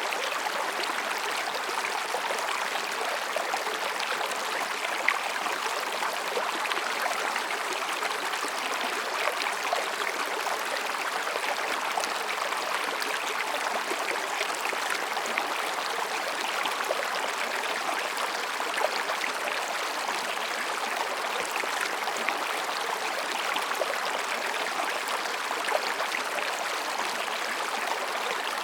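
Mountain stream rushing and babbling over rocks: a steady wash of water with small splashes scattered through it.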